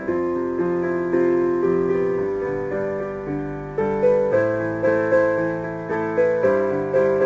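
Background piano music: a slow melody of single struck notes and chords, each fading after it is played.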